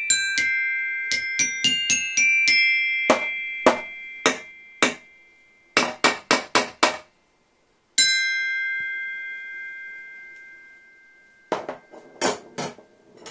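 A toy tube xylophone struck with ball-tipped mallets, clumsily picking out a simple tune: a run of ringing notes, several short dry strikes, a moment of silence, then one note left ringing for a few seconds and a few more taps near the end.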